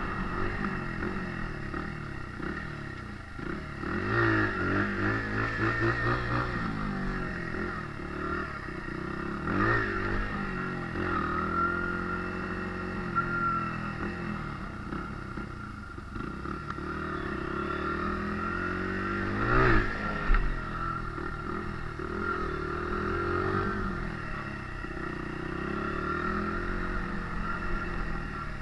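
Honda CRF80F dirt bike's small single-cylinder four-stroke engine running under way, its pitch rising and falling as the throttle is opened and closed. It revs up sharply about 4, 10 and 20 seconds in.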